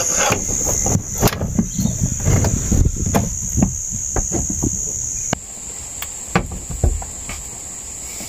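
Irregular metallic clicks and knocks of a half-inch drive ratchet and socket being worked on a jet ski's gas-strut ball knuckle. They grow sparser and quieter after about five seconds. A steady high-pitched insect drone runs behind them.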